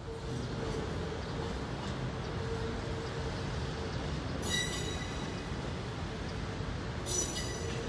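Seoul metro electric train running on the track: a steady rumble of wheels on rails with a faint steady whine, and two brief high-pitched wheel squeals, about halfway through and near the end.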